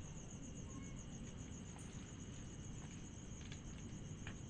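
Cricket chirping steadily: a high, evenly pulsing trill of several pulses a second, with a few faint clicks near the end.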